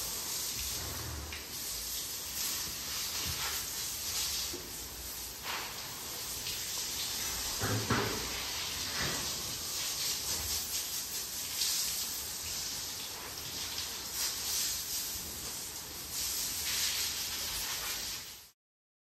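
Water spraying steadily from a garden hose onto a horse being washed down, with a few dull knocks along the way. The sound cuts off suddenly near the end.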